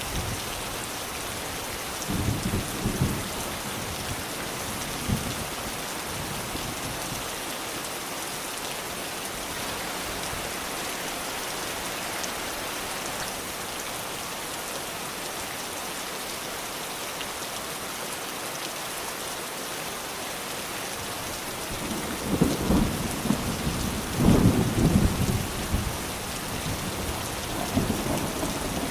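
Steady rain falling, an even hiss, with low rolls of thunder: a short rumble a couple of seconds in and a longer, louder roll about three-quarters of the way through.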